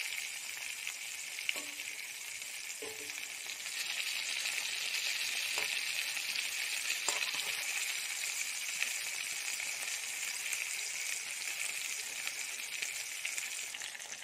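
Small whole brinjals sizzling steadily in hot oil in a kadhai. A few light clicks of the spatula against the pan come as they are turned.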